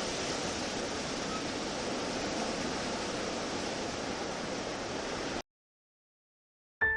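A steady rushing hiss, like running water, that cuts off abruptly about five and a half seconds in and leaves dead silence. Soft piano music comes in at the very end.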